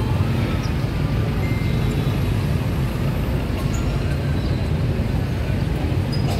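Steady low rumble of street traffic around a busy market.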